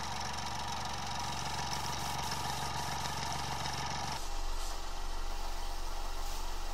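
Small tankless airbrush compressor running with a steady hum, heard close up. Its owner judges it quiet enough for indoor use. About four seconds in, the sound changes abruptly to a lower, more even hum.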